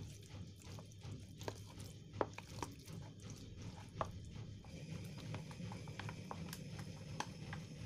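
Wooden chopsticks stirring marinated pork slices in a plastic food container: a run of irregular light clicks and taps as the sticks strike the plastic.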